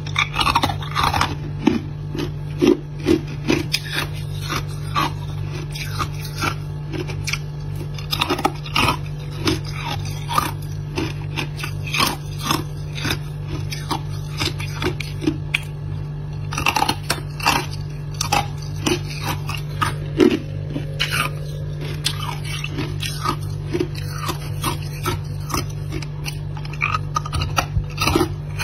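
Freezer frost crunching: irregular crisp crunches and clicks several times a second, over a steady low hum.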